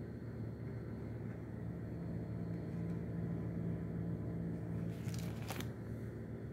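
A steady low hum, with a short crisp rustle about five seconds in as a stamp album page is turned.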